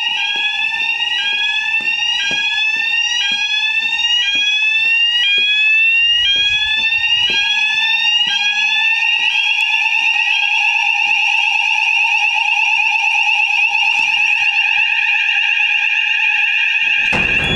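Fire alarm sounders going off during a weekly fire alarm test: a rising whoop repeating about once a second over a steady tone. About halfway through the whoops fade, leaving a steady warbling tone.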